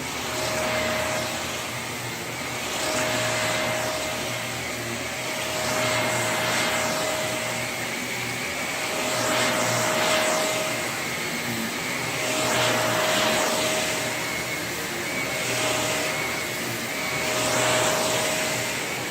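Shark Navigator Lift-Away NV351 bagless upright vacuum running: a steady motor whine with a high tone, its loudness swelling and fading every two to three seconds.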